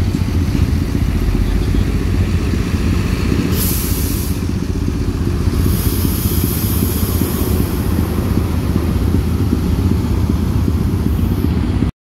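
A coach bus engine running with a steady low rumble, with two short hisses about four and six seconds in.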